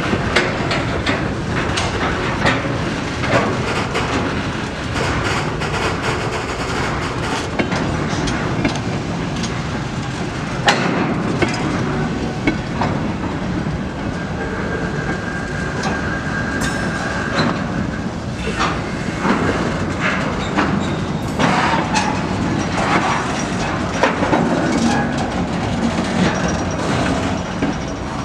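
Freight wagons (flat cars and a tank car) rolling past at shunting speed, their wheels clattering and knocking over the rail joints. A brief wheel squeal about halfway through.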